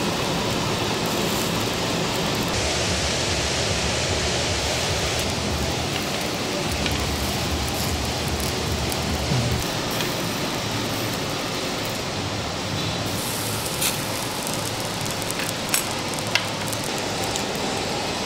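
Lamb rib pieces sizzling steadily on a wire grill over hot charcoal, with a few light clicks of metal tongs and chopsticks against the grate in the second half.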